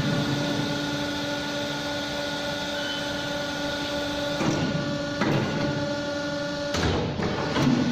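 CNC pipe bending machine running: a steady motor hum, with a few sharp knocks in the second half.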